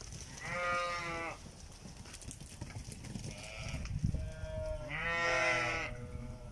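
Goats bleating: two loud calls of about a second each, one near the start and one about five seconds in, with fainter bleats between them.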